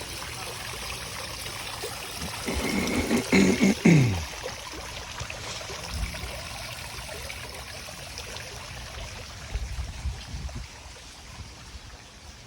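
Water trickling steadily, with a brief louder sound falling in pitch about three to four seconds in.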